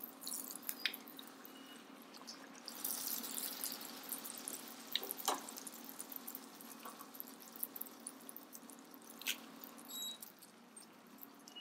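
A puri deep-frying in hot oil: a light sizzle with scattered crackles and pops from the bubbling oil, swelling for a couple of seconds about three seconds in, as the puri is pressed and turned with a slotted spatula.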